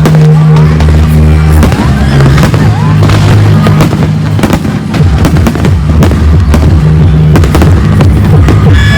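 Fireworks display going off loudly, with many sharp bangs in quick succession, over music with held low bass notes.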